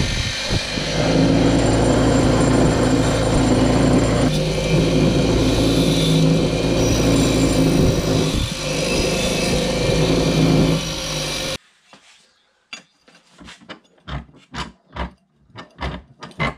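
Bench grinder motor running with its spinning wheel grinding a small steel part held in locking pliers. The motor hum and grinding noise change as the part is pressed on harder and shifted. The grinding stops suddenly near the end and gives way to a quick series of sharp metal knocks and clicks.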